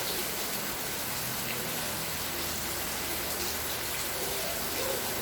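Steady rainfall: an even hiss of rain falling and pattering on surfaces.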